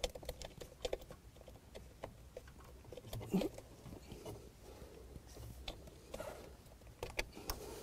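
Faint clicks, taps and rustling of plastic and wiring as the convertible top's control unit and its wiring harness are handled and pushed into place.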